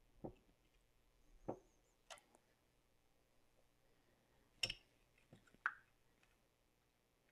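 About six faint, separate clicks and taps from fitting the CRT's anode cap: the cap's pins being pushed into place by hand and with a flathead screwdriver. The two sharpest clicks come close together in the second half.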